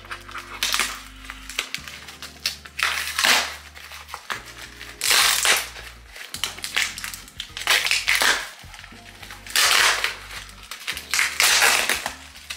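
A large cardboard shipping box being torn open by hand without scissors: repeated ripping bursts of tape and cardboard a second or two apart, over background music.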